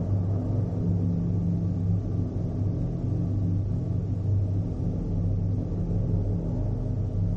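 A steady low rumble with a droning hum.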